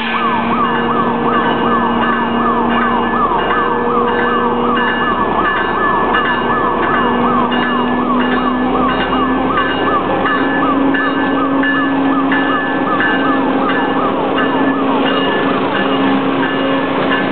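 Pacific Harbor Lines switcher locomotive moving slowly at close range: its engine runs steadily and rises slightly in pitch about halfway through. Over it, a siren-like warning tone sweeps in pitch over and over, two to three times a second.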